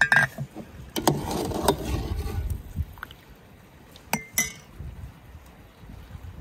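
Metal ladle scooping boiled chestnuts out of a pot of water and into an enamel bowl: ringing clinks of the ladle against the pot, water sloshing and dripping as the chestnuts are lifted out, then two sharp clinks about four seconds in.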